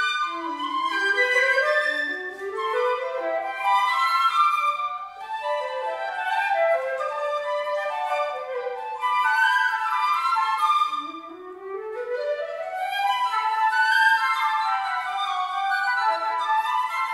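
Flute and piccolo playing a duet, with quick rising runs of notes; the sound dips briefly about eleven seconds in, then another rising run begins.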